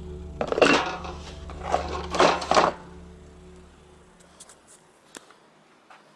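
A few loud clattering knocks of metal and wood being handled, about half a second, two seconds and two and a half seconds in, some with a short metallic ring. A low steady hum runs under them and stops about three-quarters of the way through.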